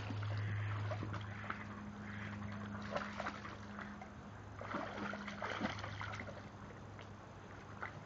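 Rottweiler pawing and nosing in shallow creek water, making irregular splashes and sloshes, with a steady low hum underneath.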